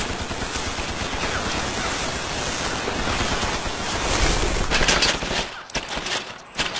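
Sustained rapid machine-gun fire, a dense unbroken clatter that breaks off after about five seconds into a few scattered single shots.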